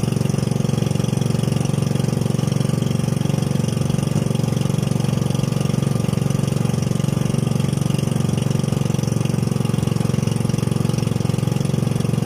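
Steady engine drone, running evenly with no change in speed.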